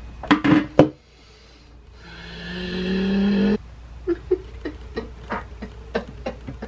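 A woman's drawn-out groan, rising slightly in pitch and cutting off abruptly about three and a half seconds in. Small sharp clicks and taps come just before it and after it.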